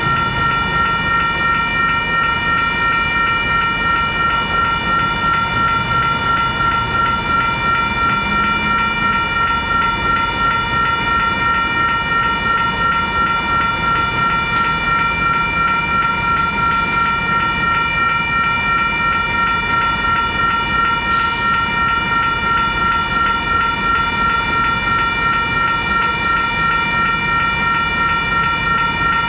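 Railroad crossing bell ringing steadily at about two to three strokes a second over the low rumble of a passing Union Pacific train.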